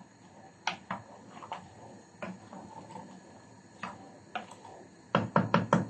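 Wooden spoon stirring diced courgette in a stainless steel pot, with scattered light knocks and scrapes, then a quick run of sharper knocks near the end.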